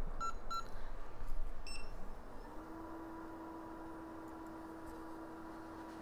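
A few short electronic beeps in the first two seconds, like a hot air rework station's control buttons being pressed, then its blower spinning up to a steady hum about two seconds in, as the station is readied to reball a phone CPU.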